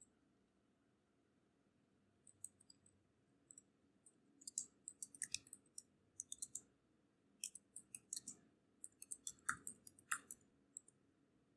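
Faint clicking of computer keyboard keys being typed in short, quick runs with brief pauses between them. It starts about two seconds in and stops near the end.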